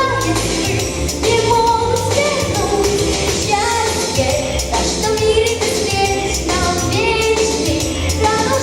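A solo voice singing a pop song in Russian over an instrumental accompaniment with a steady beat.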